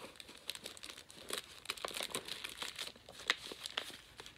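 Packaging crinkling and rustling in irregular little crackles as tea packets are handled.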